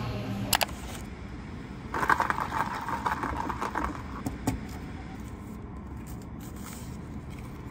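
A drinking straw's wrapper crinkling as it is torn off, in a rustly burst of about two seconds, followed by a single sharp click.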